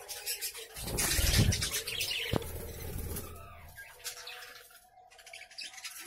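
Budgerigars chirping and chattering. About a second in comes a loud burst of rustling lasting a few seconds, with one sharp click in the middle of it.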